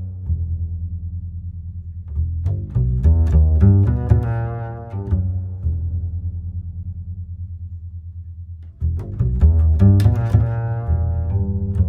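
Background music on double bass and cello: a low note repeated rapidly under a melody of higher notes, dropping away briefly near the end before coming back louder.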